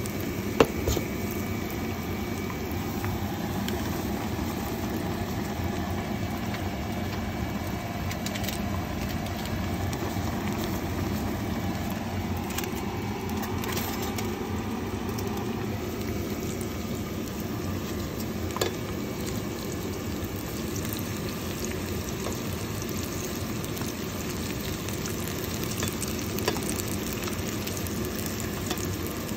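Steady sizzle of batter-coated fish pakora frying in hot oil, with a few sharp clicks, the loudest about half a second in.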